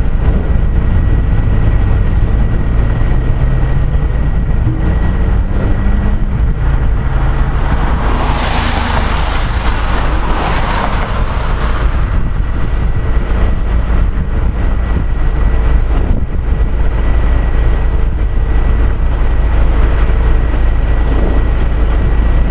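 Wind buffeting the camcorder microphone: a loud, steady low rumble, with a louder hissing rush of air about eight to twelve seconds in.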